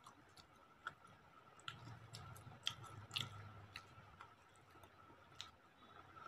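Faint chewing and wet mouth sounds of people eating rice and curry by hand, with scattered small clicks. A faint steady high tone runs underneath.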